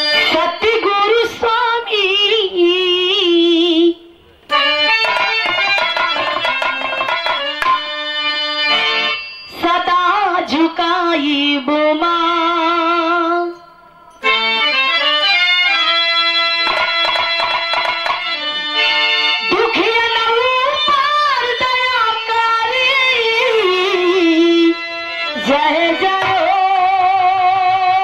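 A woman singing a Bhojpuri birha folk song with a wavering, ornamented voice over harmonium and drum accompaniment. The music drops out briefly three times, then resumes.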